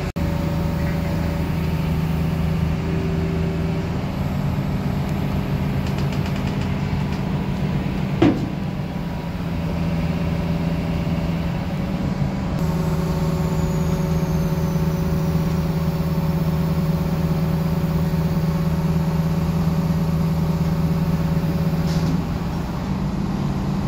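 Motor vehicle engine running steadily, with a short falling squeak about eight seconds in.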